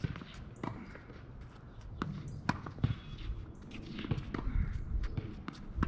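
Tennis ball being hit back and forth in a rally: sharp pops off the racket strings and bounces on the hard court, coming every second or so.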